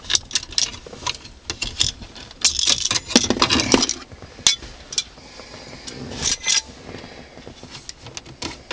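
Plastic ashtray being pulled out of a 1999 Chrysler Concorde's dash console by hand: a run of sharp plastic clicks and rattles, with a longer scraping clatter a few seconds in as it slides out.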